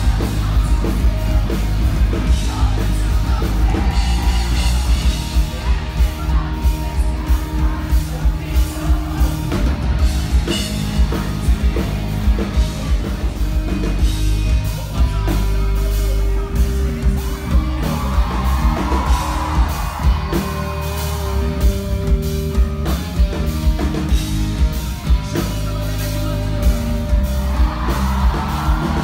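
Live rock band playing loud: a singer over drum kit, bass and electric guitar, with steady drum hits and heavy bass, heard from the crowd.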